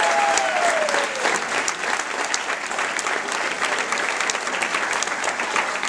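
Audience applauding, a steady patter of many hands clapping, with one voice calling out and falling in pitch about the first second in.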